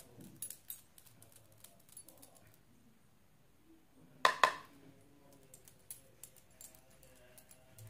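Makeup being handled: faint taps and small clicks of a brush and cosmetic containers, with a louder sharp double clink about four seconds in.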